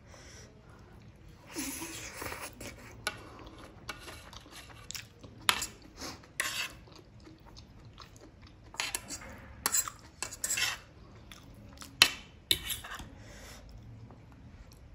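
Metal fork scraping and clicking against a plate while twirling instant noodles, in short irregular scrapes and sharp taps.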